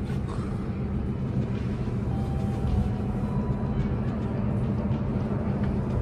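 Steady low rumble and hum of a passenger train running at speed, heard inside the carriage.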